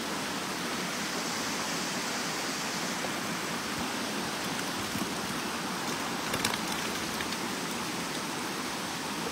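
Steady rush of shallow river water running around a wader's boots, with a few light clicks about six seconds in.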